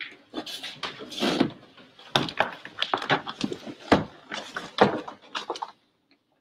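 A run of small knocks, clicks and rustles from altar vessels and cloth being handled and vestments moving, as the chalice is purified and put away after communion; it stops shortly before the end.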